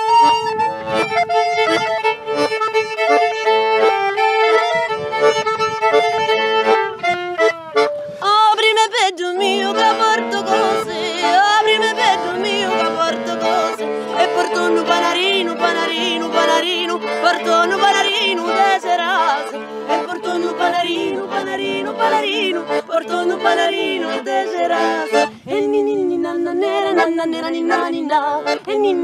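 A button accordion and a violin playing a folk tune. The accordion holds a long sustained chord for the first several seconds, then about nine seconds in a lively melody with the violin starts over a steady alternating accordion bass.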